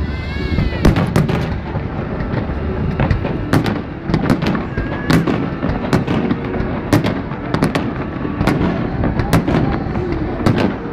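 Aerial fireworks shells bursting in a display: an irregular string of sharp bangs, about one or two a second, over a continuous background din.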